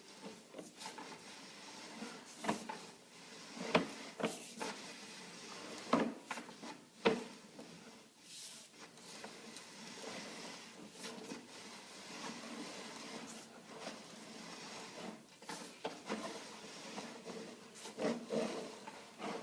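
Steady rubbing and scraping, with several sharp knocks, the loudest about 4, 6 and 7 seconds in.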